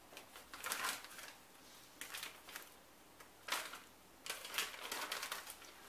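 Plastic spice packets rustling and crinkling as they are handled, in several short bouts.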